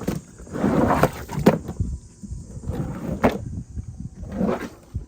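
A brush scrubbing a truck floor mat: about four rough, rasping strokes, each swelling and ending in a sharp scrape.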